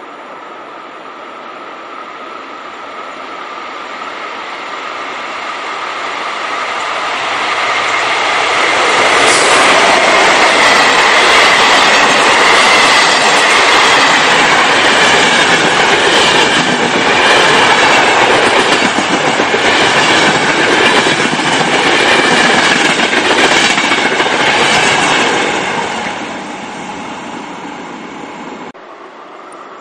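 Long-distance passenger express hauled by an electric locomotive, approaching and passing close by, with a fast clatter of wheels over rail joints as the coaches go past. The sound then fades, and its level drops abruptly near the end.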